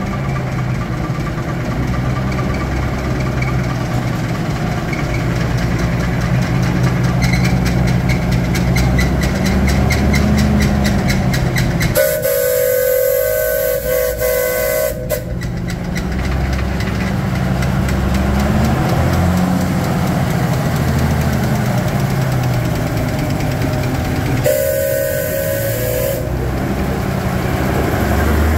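A heavy engine running steadily, its speed shifting slightly, while a steam whistle sounds twice: one blast of about three seconds about twelve seconds in, and a shorter one of about a second and a half near the end.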